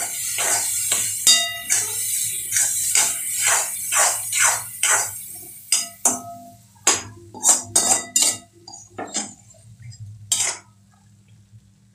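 Metal spoon scraping and knocking against a metal kadai while stirring gram flour into cooked tomatoes, in quick repeated strokes. The strokes thin out after about seven seconds and stop near the end.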